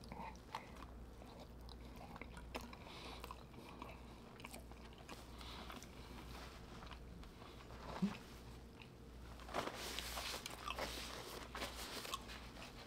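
Close-miked mouth sounds of a person eating a saucy seafood boil: chewing with small wet smacks and clicks, busier about ten seconds in.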